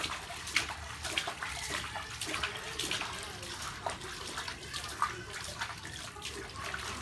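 Water splashing and sloshing in a small inflatable paddling pool as a dog is bathed, hands scooping water up and pouring it over its back in irregular splashes.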